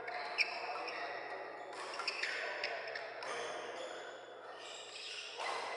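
Badminton doubles rally: sharp racket hits on the shuttlecock, the loudest about half a second in, and short squeaks of court shoes on the synthetic floor, over the steady background of a large sports hall. It goes quieter about four seconds in as the rally ends.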